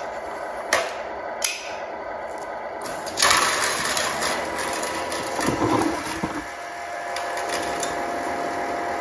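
Two sharp knocks as the pull sled is handled. About three seconds in, the Tamiya Grand Hauler 1/14 RC truck's electric motor and gearbox start up, and the truck strains against the sled with a steady motor whine.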